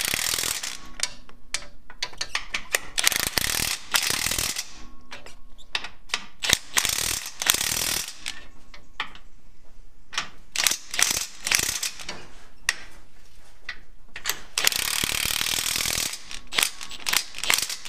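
Cordless impact wrench hammering in several bursts of a second or so, with short rattles and clicks between. It is running the track bar and sector arm brace bolts in snug before they are torqued.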